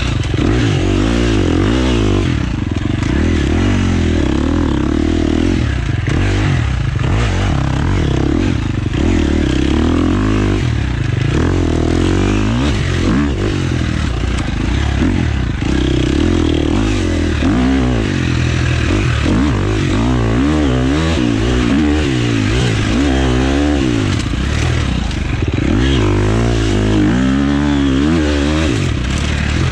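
Husqvarna FX 350 dirt bike's four-stroke single-cylinder engine, revving up and backing off over and over as it is ridden through turns, with rattling and scraping from the bike and the dirt.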